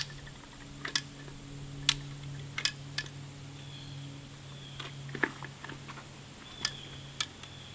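Irregular sharp clicks, roughly one a second, over a steady low hum, with a few faint high chirps.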